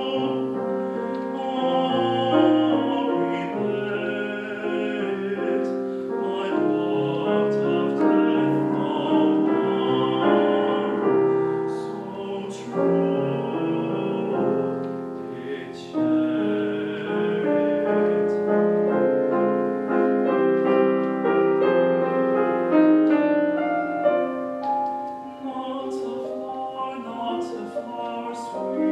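A male classical singer singing in operatic style, accompanied by a grand piano.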